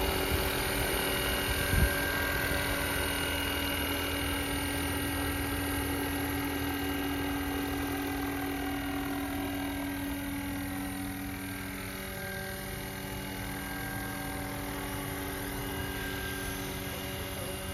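Electric-powered 800-size scale UH-1D Huey RC helicopter in flight: a steady hum and whine from its motor and rotor, fading gradually as it flies away. A brief thump about two seconds in.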